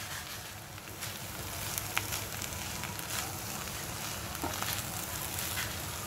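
Wooden spatula stirring dry mackerel kismoor (grated coconut, onion and dried fish) in a non-stick frying pan over a faint steady sizzle, with a few light taps of the spatula against the pan.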